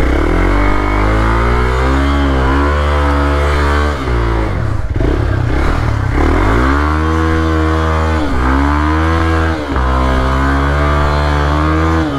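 Motorcycle engine pulling away and riding on, revving up and down, with the throttle briefly closing about four seconds in and twice more around eight and ten seconds.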